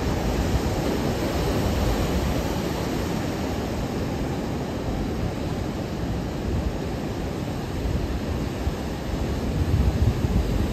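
Atlantic surf breaking over a volcanic rock shore: a steady, rushing noise of waves and foam, swelling louder near the end.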